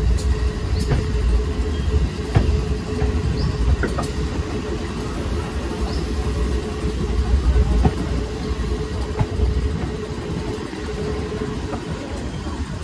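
Train rolling slowly along the track, heard from on board: a steady low rumble of wheels on rail with a constant hum and scattered clicks and clanks.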